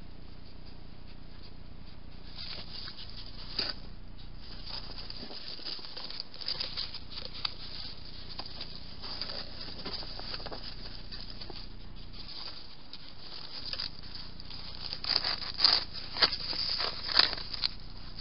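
European hedgehogs scuffling and rustling on patio paving: scattered small clicks and scrapes over a steady hiss, with a louder run of rustling scuffles near the end as one comes right up to the camera.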